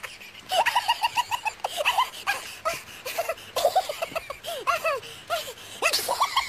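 People laughing in quick runs of short, high-pitched bursts that break off and start again several times.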